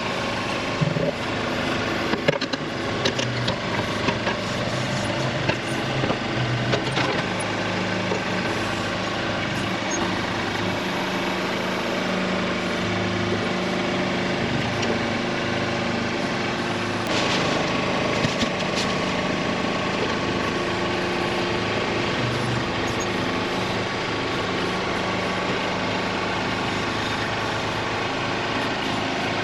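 Tractor engine running steadily while the backhoe works, its pitch stepping up and down now and then. Scattered knocks come in the first several seconds and again near the middle.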